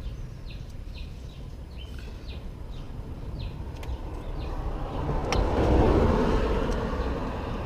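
A vehicle passing on a road, its noise swelling to a peak about six seconds in and then easing off, over a steady low rumble. Short high chirps repeat about twice a second through the first half.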